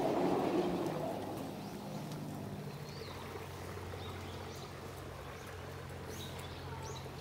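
Outdoor ambience: a steady low mechanical hum, with faint short bird chirps a few times. A brief noisy rustle in the first second.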